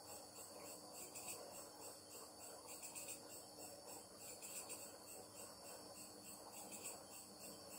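Faint crickets chirping in a steady, evenly pulsing trill over a low, steady hum.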